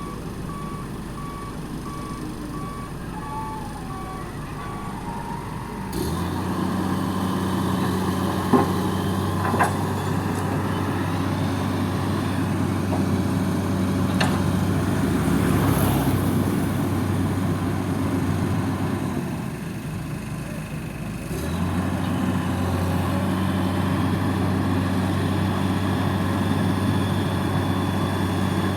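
A reversing alarm beeping in a steady series over engine noise for the first few seconds, then the heavy diesel engine of construction machinery running steadily, with two sharp knocks a few seconds after it comes in.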